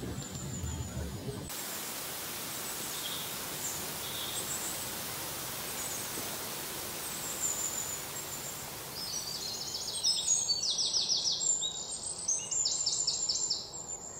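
Outdoor nature ambience: a steady rush of water from a small waterfall with scattered bird chirps. About nine seconds in it gives way to louder, rapidly pulsing high-pitched chirping calls.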